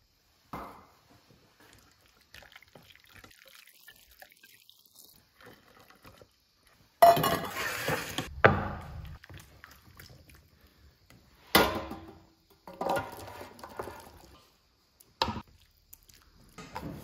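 Kitchen handling sounds: a steel pot and pan clattering, with thick macaroni and cheese poured and scraped into a steel pan. There are several sudden knocks, the loudest about seven seconds in, and quieter rustling before it.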